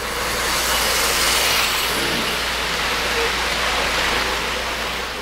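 O-scale model passenger train running past close by, a steady rushing rumble that begins to fade near the end.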